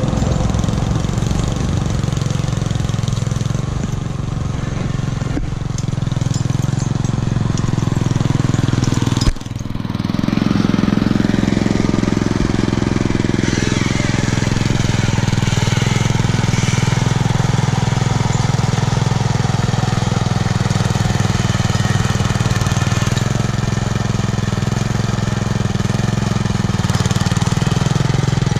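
Homemade garden tractor's small engine running steadily through a home-built muffler while the tractor pushes snow with a front plow blade. About nine seconds in, the sound breaks off sharply and picks up again.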